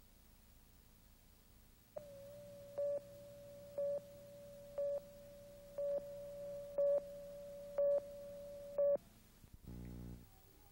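Videotape leader's steady test tone starting about two seconds in, with a louder countdown beep about once a second, seven in all, stopping about nine seconds in. A brief low buzz follows near the end.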